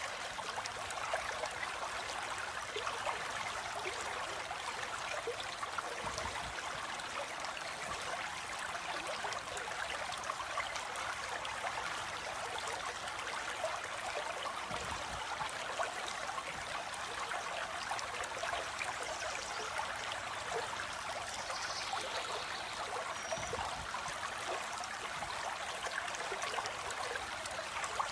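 Stream water flowing steadily with an even rushing, splashing sound. A few faint high bird calls come in about two-thirds of the way through.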